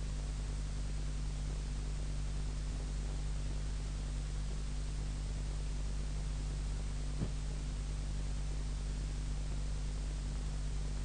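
Steady low electrical hum under an even hiss, with a single faint click about seven seconds in: the recording's background noise with no speech.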